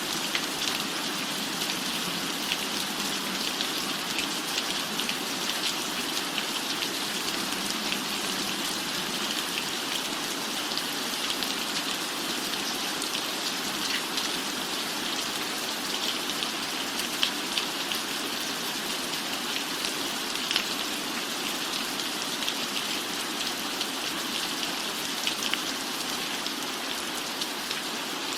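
Steady rain falling, with many small sharp drop ticks scattered throughout.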